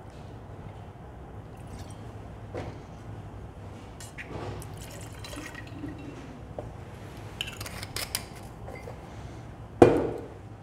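White rum trickling from a bottle into a small glass jigger and then tipped into a steel cocktail shaker, with light glassy clinks. A loud knock near the end as the bottle is set down on the bar.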